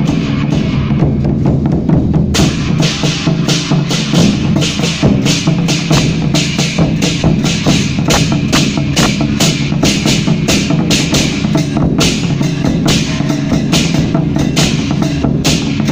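Chinese temple-procession percussion: drums and cymbals beaten in a fast, steady rhythm. The cymbal clashes come in strongly about two seconds in.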